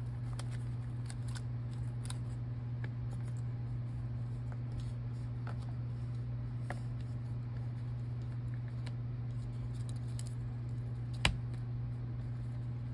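Light clicks and taps from hands handling an opened MacBook Air M1 and its small parts, over a steady low hum. A single sharper knock about eleven seconds in, as the laptop is set back down flat.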